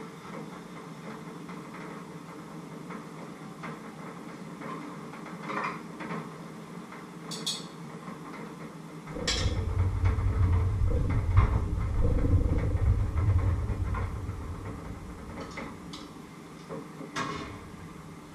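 Kitchen work: scattered clinks and knocks of utensils and cookware over a steady background hum. About nine seconds in, a loud low rumble starts and lasts several seconds before fading.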